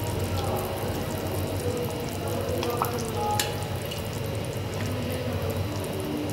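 Thick tamarind curry bubbling at a simmer in a clay pot, stirred with a spoon at the start. There are a couple of light clicks about three seconds in.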